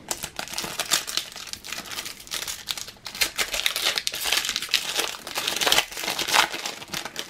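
Foil trading-card booster pack crinkling in the hands as it is torn open, a continuous run of sharp crackles.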